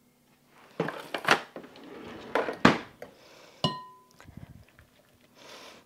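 Metal kitchen utensils clattering and clinking: a run of sharp clanks, one strike a little past the middle that leaves a short ringing tone, then quieter scraping as a spoon works cobbler batter in a glass mixing bowl.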